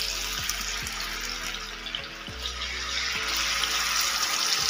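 Masala-coated kingfish steaks sizzling in hot coconut oil in a frying pan. The sizzle gets louder about three seconds in as another steak is laid in.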